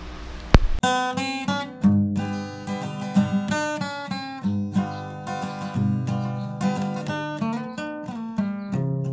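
A brief click, then acoustic guitar music starting about a second in: plucked and strummed notes with a steady rhythm.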